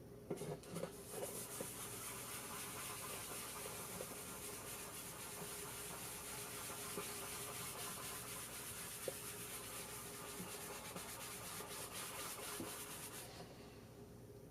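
A cloth rubbing beeswax into a wooden box to buff it to a shine: a steady scrubbing hiss that stops about a second before the end, with a few small knocks near the start.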